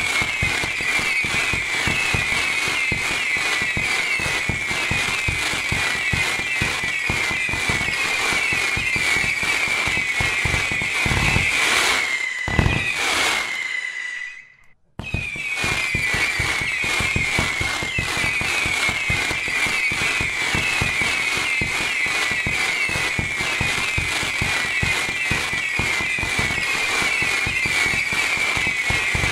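HASS 100-shot fireworks battery firing silver howler shots in rapid succession, about two a second: overlapping falling whistles over the dense crackling of hard-rain crackle stars. A brief pause about halfway through follows a couple of louder bangs, and then the firing resumes.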